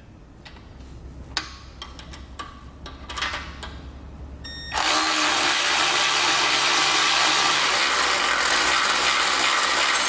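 Cordless electric ratchet running steadily, spinning a nut down onto a jack-bracket bolt, starting about halfway through after a few light metal clicks of the wrench and socket being fitted.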